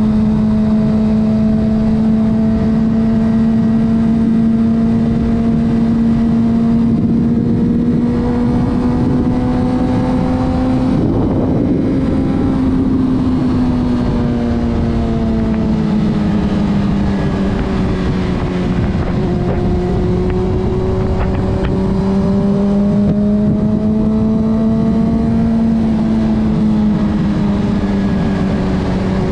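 Honda CBR600RR's inline-four engine running at steady revs, its note drifting slowly up and down with small throttle changes and never blipped hard.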